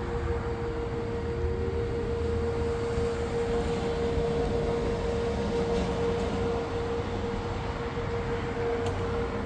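Radio receiver static: a steady hiss with a constant low hum-like tone running through it.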